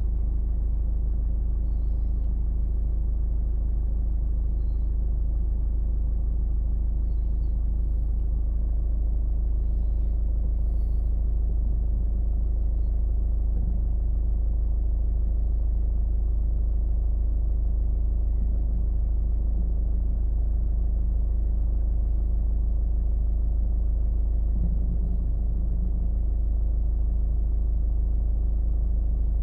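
Steady low rumble of a car driving at an even pace, road and engine noise with no change in speed.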